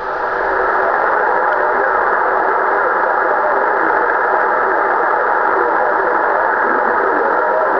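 Steady static hiss from a Kenwood HF transceiver's speaker, tuned to 27.385 MHz on the 11-metre band with no station transmitting, with a few faint steady tones in the noise.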